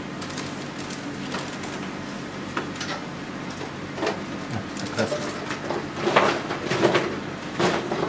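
Short scratchy strokes of paint being worked onto a stretched canvas. They are sparse at first and come louder and closer together from about six seconds in, over a steady low hum.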